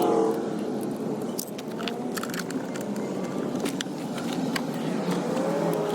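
Light metallic clinks and ticks of tools and parts being handled during engine-bay work, over a steady background hum.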